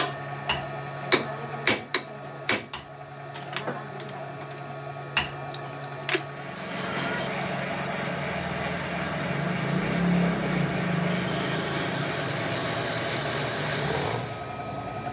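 Sharp metal clicks and knocks of tools being worked on a manual lathe while it stands, then about six seconds in the lathe's spindle and motor start up and run steadily, the chuck turning.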